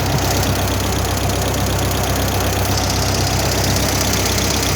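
Flathead gasoline engine of an engine-driven Lincoln arc welder, running steadily.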